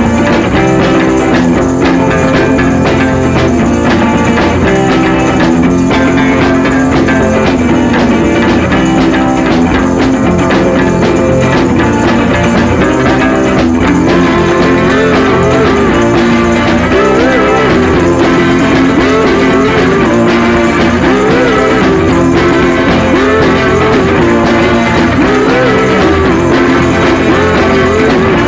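Rock background music with guitar and a steady beat; a bending melody line comes in about halfway through.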